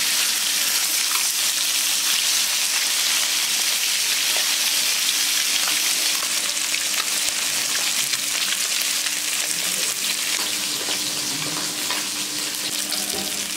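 Pieces of shol (snakehead) fish frying in hot oil in a karai, browning: a steady dense sizzle with fine crackling that eases slightly toward the end.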